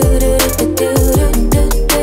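Background music: an R&B-style song with a steady drum beat and deep bass notes that slide downward.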